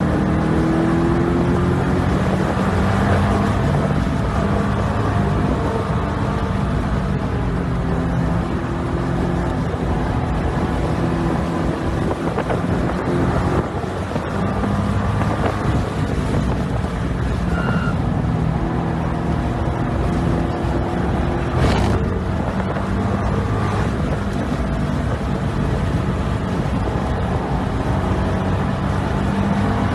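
2012 Corvette Grand Sport's 6.2-litre LS3 V8 running hard at track speed, its pitch climbing and dropping with throttle and gear changes.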